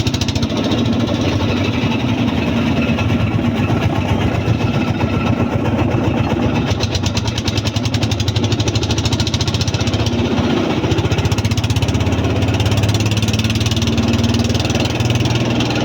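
Small river boat's engine running steadily, a fast, even chugging.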